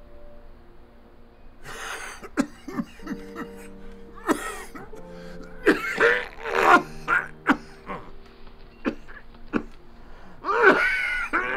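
An elderly man coughing into a cloth held to his mouth, in repeated fits that start about two seconds in and grow loudest in the middle and near the end, over soft sustained music.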